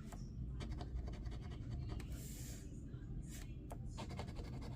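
Scratch-off lottery ticket being scratched: a run of short scratching strokes coming in a few quick groups, over a steady low background rumble.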